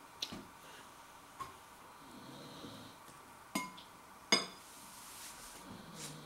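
Metal spoon clinking against a ceramic bowl: several sharp chinks with a short ring, the loudest about four seconds in.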